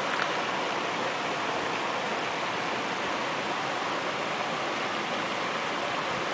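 Steady rush of running water from a small stream or brook, an even hiss with no distinct splashes or knocks.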